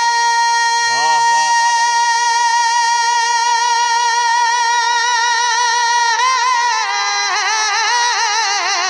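Male naat singer holding one long, high sung note for about six seconds, then breaking into wavering melodic ornaments on the same line. A brief, fainter lower voice bends in about a second in.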